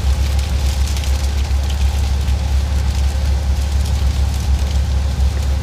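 Semi truck's diesel engine and road noise heard from inside the cab while cruising on the highway: a steady, loud, low drone.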